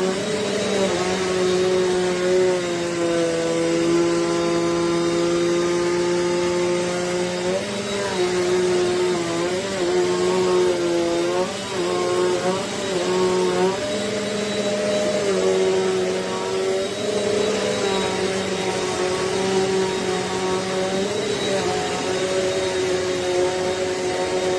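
Eureka Airspeed bagless upright vacuum cleaner running on carpet: a steady motor whine over a rush of airflow, its pitch wavering slightly from about eight seconds in.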